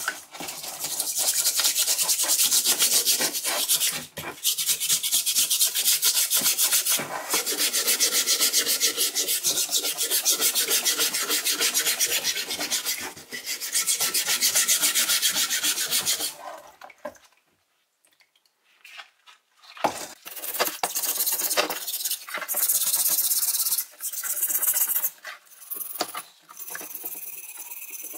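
Rusty steel wrench being scrubbed with an abrasive: a rapid rasping rub in long runs, with a few brief pauses and a break of a few seconds past the middle before it starts again.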